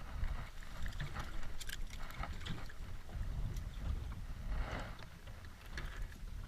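Wind rumbling on the microphone, with scattered small clicks and knocks and a brief rush of noise a little over four and a half seconds in.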